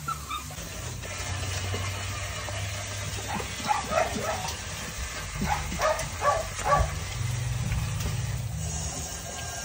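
Pit bull puppies yipping in short, high calls: a few about four seconds in, then a quick run of three or four a couple of seconds later.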